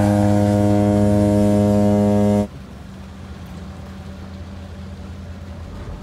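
Ferry's ship horn sounding one long, deep, steady blast that cuts off suddenly about two and a half seconds in, leaving a faint low hum.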